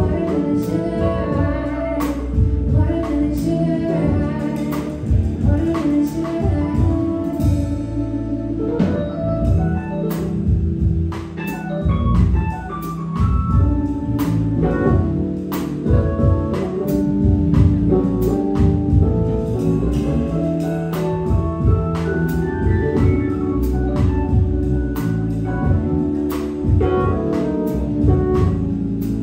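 Live band playing: an organ-toned keyboard and electric guitar over a drum kit keeping a steady beat.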